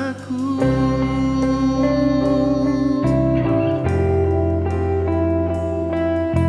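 Worship band music: a singer holds a last sung word in the first half second, then an instrumental passage follows, with a guitar melody over sustained chords and a bass line that changes note every few seconds.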